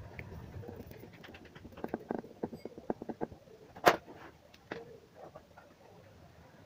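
Quick small clicks and crackles from a heated bonding iron pressed onto a TV panel's COF strip and circuit board, with one sharp click near the middle as the hands let go of the iron.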